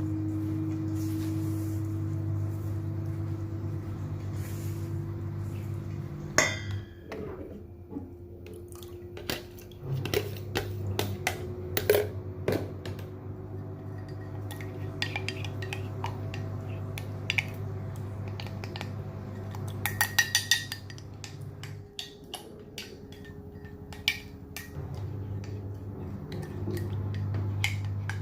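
A utensil clinking and scraping against a mixing bowl while an egg-and-milk mixture is stirred, in scattered knocks with a quick run of clinks about two-thirds of the way through. A steady low hum runs underneath, cutting out twice and coming back.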